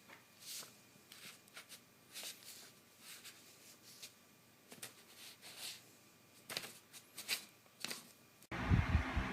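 Faint scattered rustling and light clicks, like something being handled or moving over a surface, then an abrupt switch near the end to a much louder low steady hum.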